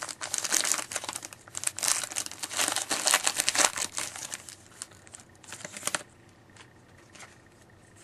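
Wrapper of a pack of O-Pee-Chee hockey cards being torn open and crinkled by hand: dense crackling for about six seconds, then only faint handling noise.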